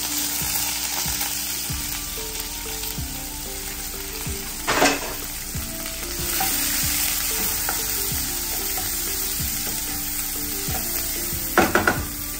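Chopped onion, green chillies and curry leaves sizzling steadily in hot oil in a small nonstick frying pan, the start of a Kerala thoran tempering. A spatula stirs and scrapes through the pan in two louder bursts, about five seconds in and again near the end.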